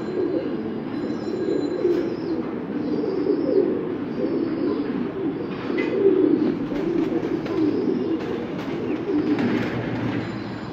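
Black pouter pigeons cooing, low coos overlapping one another without a break.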